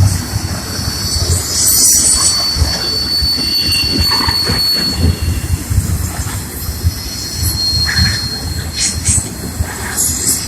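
Train rolling past with its wheels squealing on the rail in a high, steady tone over the low rumble and thumping of the cars. The squeal fades out about halfway through and returns briefly later.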